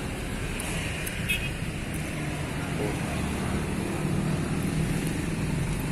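Steady hum of road traffic passing, a low engine drone with no single loud event.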